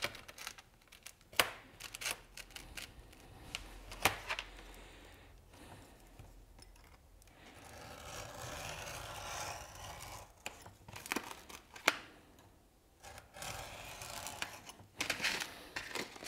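A marking knife with a Stanley blade, drawn along a steel rule, slicing thin plastic micro-finishing film into strips on a cutting mat: quiet scratchy cutting strokes, the longest about eight seconds in, with scattered clicks and taps as the rule, knife and film strips are handled.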